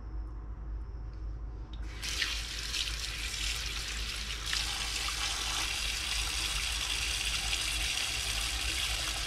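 Kitchen sink tap turned on about two seconds in, then tap water running steadily into the sink onto a pile of raw shrimp being rinsed.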